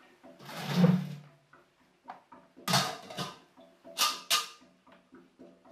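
Stainless-steel milker bucket and its lid and claw clunking and clanking as they are handled: a heavier thump about a second in, then a few short, sharp metal clanks around three to four and a half seconds in.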